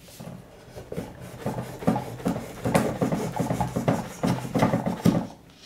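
A large folding cleaver knife hacking again and again into the edge of a thick paperback book: a rapid, irregular run of chopping strikes through paper that grows louder and stops about five seconds in.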